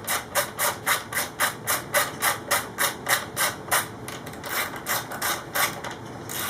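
LighTech chain adjuster being wound by hand, its internal detent clicking at each increment of turn. The clicks come in a quick, even run of about three or four a second and trail off near the end.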